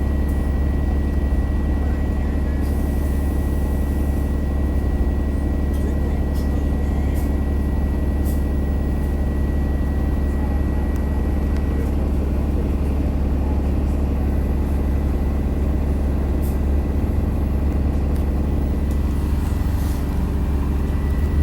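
Steady low drone of an ADL Enviro500 MMC bus's Cummins ISL8.9 diesel and driveline, heard from inside while it runs. Over it sits a thin high whine, the weird axle sound; it drops out about halfway through and comes back near the end.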